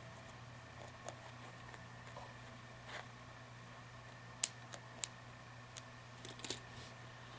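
Faint, scattered clicks and light handling noises of hands working on a paper-towel mask and threading cord through it, with two sharper clicks around the middle, over a steady low hum.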